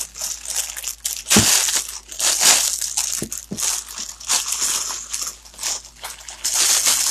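Clear plastic bag crinkling and rustling as it is handled, on and off, with a few dull thumps about a second and a half and three and a half seconds in.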